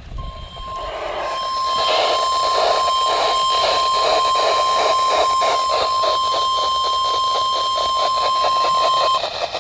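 NOAA Weather Radio warning alarm tone, the 1050 Hz signal that switches on weather-alert receivers: one steady tone that starts just after the opening, holds for about nine seconds and cuts off near the end, heard through a radio over static.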